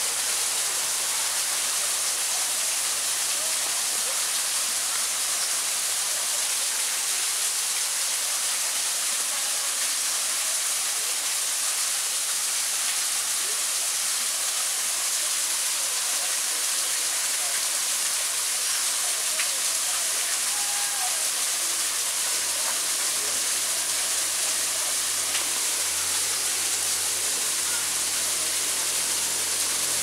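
Small artificial waterfall pouring steadily into a rock-edged pond, an even hiss of falling water. A faint low hum comes in near the end.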